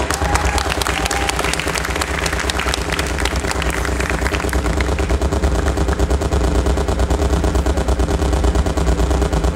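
Performance music for a pole routine: a fast, even run of percussive hits over sustained low tones, following a rising sweep.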